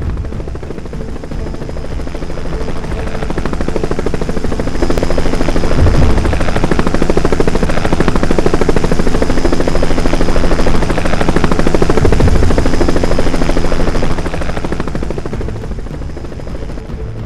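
Helicopter rotor chopping steadily with engine whine. It swells over the first few seconds, holds loud, and fades over the last few seconds.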